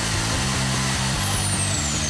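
Portable band saw running with metal bar stock at the blade, its high whine falling steadily in pitch from about a second in as it winds down. Rock music with a steady beat plays underneath.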